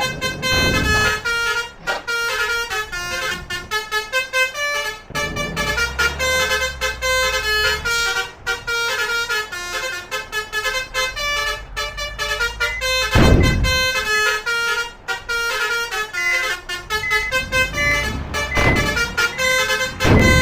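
Multi-tone 'telolet' musical vehicle horns playing fast runs of short, stepped notes like a tune, over engine rumble. A vehicle passes close twice, about two-thirds of the way through and again at the end.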